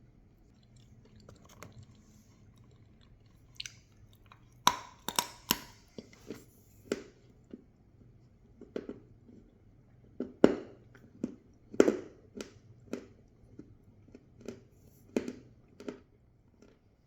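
Crunchy food being bitten and chewed close to the microphone: a crisp bite cracks about four and a half seconds in, followed by a run of crunching chews about two a second.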